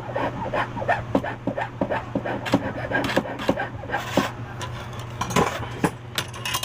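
Irregular scraping, rubbing and clicking from hand work with small tools on a metal eyeglass frame, with a steady low hum underneath.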